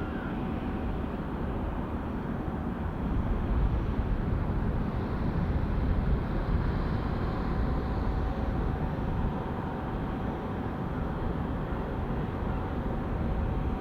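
Airbus A321neo's Pratt & Whitney geared turbofan engines at idle as the airliner taxis: a steady low rush of engine noise with a faint constant whine, a little louder in the middle.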